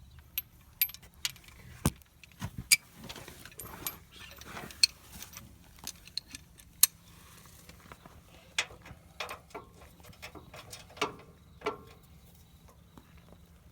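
Metal hand tools clicking and clinking irregularly, a socket wrench being handled and worked on a suspension bolt, with a few sharper knocks.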